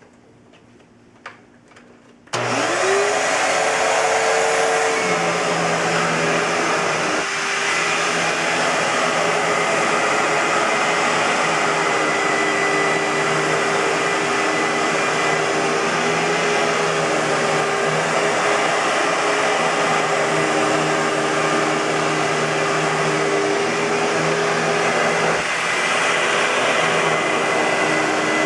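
2006 Hoover WindTunnel bagless upright vacuum cleaner (U5753-900) switched on a little over two seconds in, its motor whining up to speed over a couple of seconds, then running steadily and loudly. A small click comes just before it starts.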